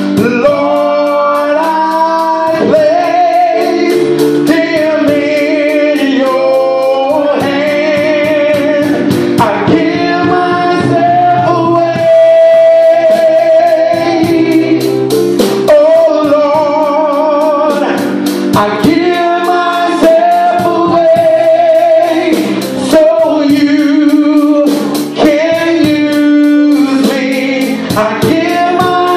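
A man singing a slow gospel praise-and-worship song into a microphone, holding long notes with a wavering vibrato, over instrumental backing.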